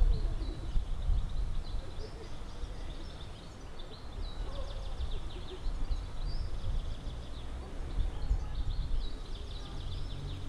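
Small birds chirping repeatedly in short, high calls over a steady, uneven low rumble of outdoor background noise.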